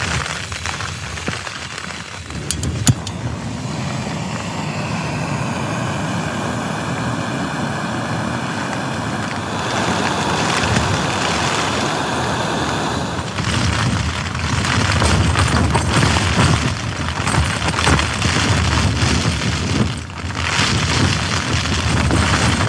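Wind gusting and buffeting against a tent, with the steady hiss of a canister gas stove burning under a pot. The gusts grow louder about halfway through.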